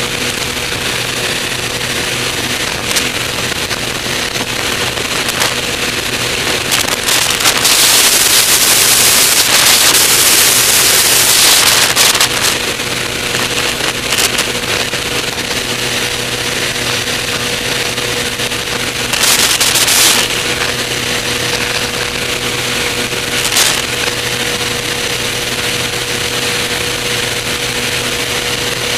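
Avid light aircraft's engine and propeller running at a steady, even drone in flight, with wind rushing over the outside microphone. A loud surge of wind hiss comes from about 7 to 12 seconds in, with shorter gusts near 19 and 23 seconds.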